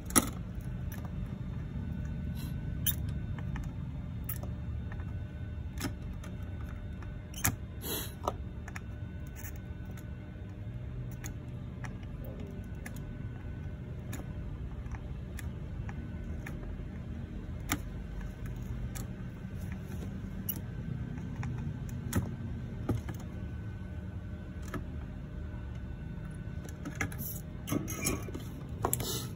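Scattered light clicks and taps of tools and a circuit board being handled on a workbench, over a steady low background hum; the clicks cluster around eight seconds in and again near the end.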